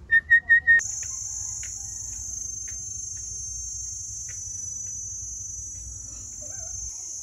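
A caged myna gives four quick, loud, ringing calls, then a steady high-pitched insect drone takes over with a few faint chirps scattered through it.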